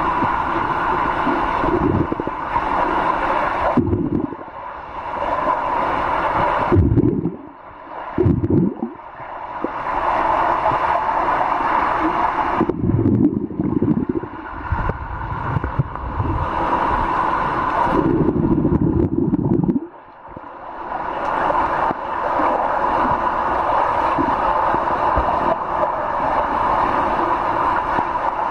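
Muffled rushing and gurgling of pool water heard through a camera held underwater, with swimmers' kicks churning the water. The sound surges and falls away several times.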